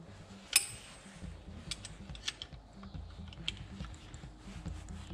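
Metal parts and hand tools being handled: a sharp metallic clink that rings briefly about half a second in, then a run of lighter clicks and taps.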